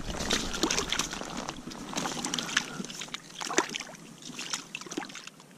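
Irregular rustling, small clicks and light splashing at an ice-fishing hole as a minnow-baited jig is handled and lowered into the water. The sounds thin out toward the end.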